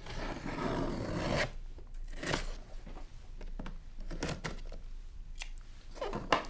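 Scissor blade slicing through packing tape along the seam of a cardboard box: one long scratchy cut in the first second and a half, then shorter cuts and scrapes against the carton.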